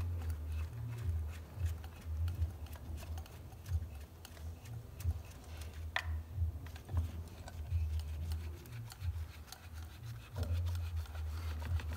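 Small scraping and clicking handling noises as a compression tester's threaded adapter is worked out of one spark plug well and into the next on the engine, with one sharper click about six seconds in, over a low uneven rumble.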